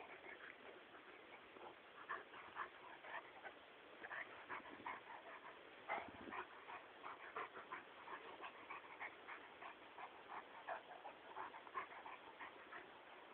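A dog whimpering in short, high cries repeated several times a second.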